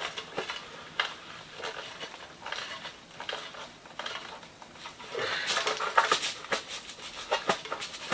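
Screwdriver turning a screw and small hard parts clicking and scraping inside a gate-opener control box as its transformer is fastened in place; the clicking gets busier about five seconds in.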